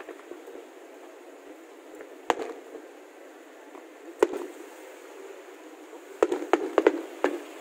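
Fireworks bursting with sharp bangs: one about two seconds in, another about four seconds in, then a quick run of five near the end.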